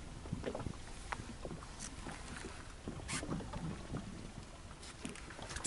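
Faint wind and water noise around a small open boat, with scattered light clicks and a few brief hisses.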